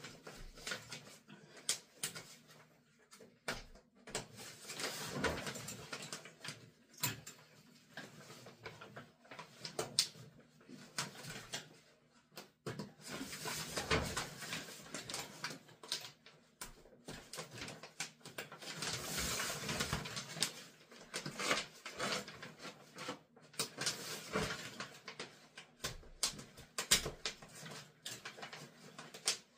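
Plastic shower curtain rings clicking and rattling against each other and the rod as the curtain is hooked on, with the curtain's plastic sheet rustling in between.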